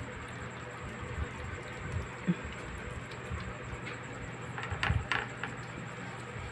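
Cats eating from a shared dish: a few soft clicks and taps, clustered about five seconds in, over a steady low hum.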